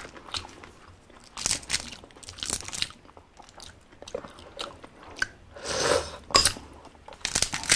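Close-miked eating of balut: the duck eggshell crackling and clicking as it is peeled by hand, then biting and mouth sounds as the egg goes to the mouth, in scattered sharp bursts.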